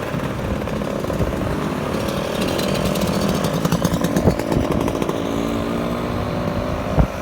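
A motor vehicle engine running close by in queued traffic, giving a steady buzzing note that drifts slowly in pitch. Wind rumbles on the microphone, and there is a short knock near the end.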